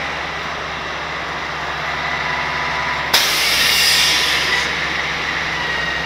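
Grapple truck's diesel engine running steadily with a constant whine. About three seconds in, a burst of compressed air hisses out for about a second and a half.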